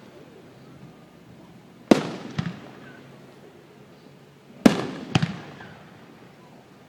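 Fireworks aerial shells bursting: two loud bangs about three seconds apart. Each is followed about half a second later by a second, smaller bang and a rumbling fade.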